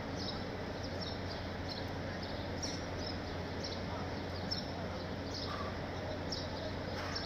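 Steady murmur of a large crowd, with birds chirping over it in short, high, falling chirps about every half second, and a low steady hum underneath.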